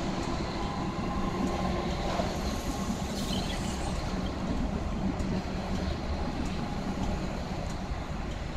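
Comeng electric suburban train pulling away from the station, its cars rumbling steadily over the tracks as they run past below.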